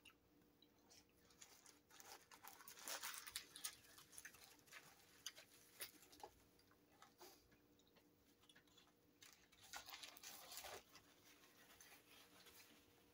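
Faint close-up eating sounds: chewing, with a paper burger wrapper being crinkled in scattered small clicks and rustles, busiest about two to four seconds in and again near ten seconds.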